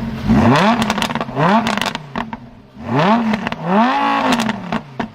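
Lamborghini Huracán LP610-4's V10 engine being revved in about five quick throttle blips, the last held a little longer. Sharp exhaust crackles pop as the revs fall, most clearly near the end.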